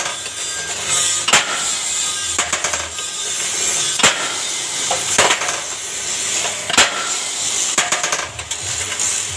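Automatic rebar stirrup-bending machine, driven by a 1.5 hp single-phase electric motor, bending a steel bar into a triangular stirrup: sharp metal clanks from the bending head every one to three seconds over steady machine noise.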